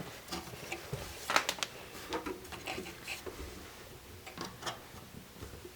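Light scratching and rustling with scattered small clicks as packed lint is picked and pulled out from inside a dryer.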